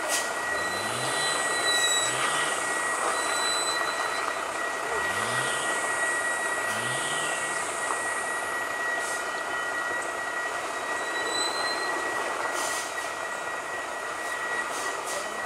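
Heavy loaded truck's diesel engine running under load as it crawls slowly over a broken road, with a few short rising revs. A steady high-pitched whine sounds throughout.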